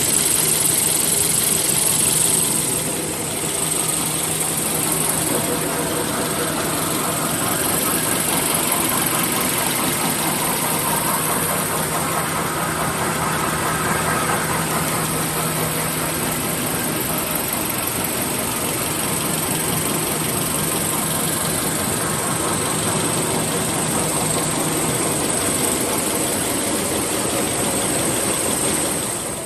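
Automatic jumbo-roll toilet paper machine running steadily, a dense mechanical clatter with a constant high whine over it. The level dips slightly about three seconds in, and a low hum under the clatter fades out near the end.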